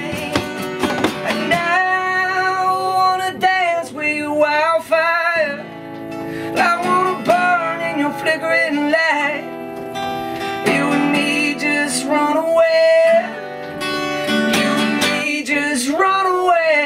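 A man singing a song live, accompanied by a strummed acoustic guitar, holding some notes long with vibrato.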